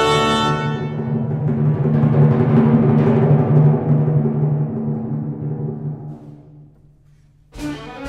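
Orchestral film score: a held chord cuts off just after the start, a timpani roll swells and then dies away, and the full orchestra comes back in suddenly with sharp accents about seven and a half seconds in.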